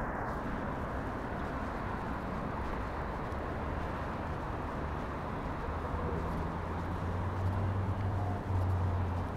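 Steady hiss of road traffic on the street beside the path. A low engine drone swells over the last few seconds as a vehicle passes.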